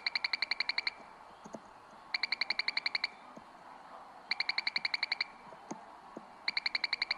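Keio Electric Railway platform approach warning sound: an electronic alarm of rapid beeps, about ten a second in bursts of under a second, repeating about every two seconds, signalling that a train is approaching the platform.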